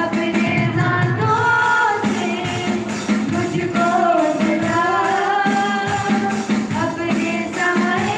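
Live Christian worship song sung into microphones over a PA, voices carrying a drawn-out melody over a steady rhythmic accompaniment.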